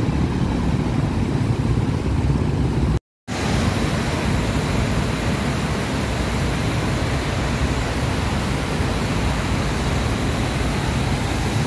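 Road traffic with motorcycles passing, broken off by a brief total silence about three seconds in. Then the steady rushing splash of a fountain's water jets.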